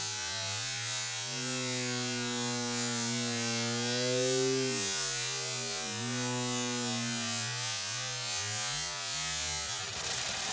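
A steady, low-pitched buzzing drone that wavers slightly in pitch, breaks off briefly twice and stops near the end.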